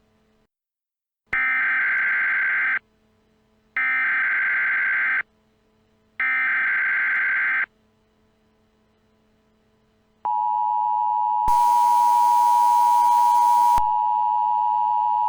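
Emergency Alert System signal: three identical bursts of SAME header data, each a harsh, buzzy digital screech about a second and a half long. Then the steady two-tone EAS attention signal starts, with a loud hiss of noise laid over it for about two seconds in the middle.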